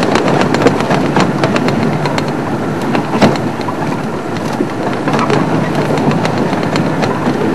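Game-drive vehicle driving along a rough dirt track: a steady engine drone with many short clicks and rattles from the vehicle bumping over the road, one louder knock about three seconds in.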